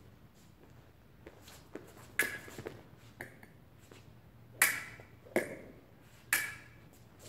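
Fencing blades clashing: sharp metallic clacks, each with a brief ring. The loudest comes about two seconds in and three more follow between four and a half and six and a half seconds, with lighter taps in between.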